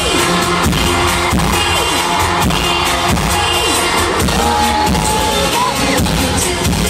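Loud pop concert music from an arena sound system, recorded from among the audience, with a steady thudding kick-drum beat and a held note midway.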